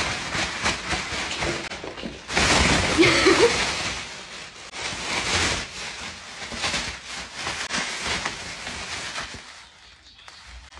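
Thin plastic shopping bag crinkling and rustling as a cat inside it is carried and swung, loudest from about two to four seconds in. A short wavering call sounds about three seconds in.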